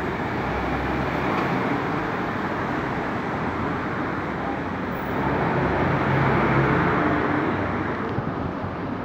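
Road traffic passing on a wet street: a steady rush that swells as a vehicle goes by about five to seven seconds in.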